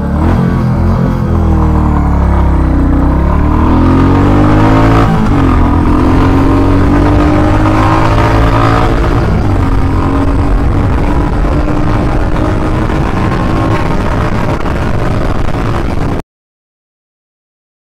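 Royal Enfield Classic 350's single-cylinder engine pulling hard from a standstill under full throttle on a 0-100 km/h run, its note climbing in pitch and dipping at the gear changes on the way into third. The sound cuts off suddenly near the end.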